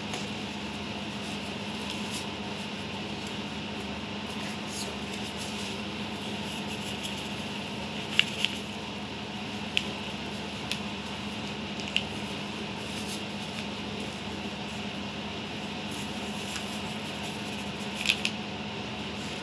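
Steady low room hum with a handful of short, sharp plastic ticks and crinkles, a cluster around the middle and another near the end, as sachets of vanilla powder are handled, opened and emptied into the batter bowl.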